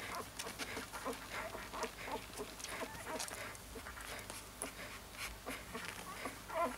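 Newborn Siberian husky puppy making small, irregular squeaks and snuffling breaths, with one louder squeak near the end.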